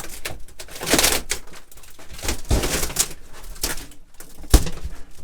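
Rotten plywood wall panel being prised and torn off a camper van's wall: a run of irregular cracks, knocks and scraping, with the sharpest, loudest crack about four and a half seconds in.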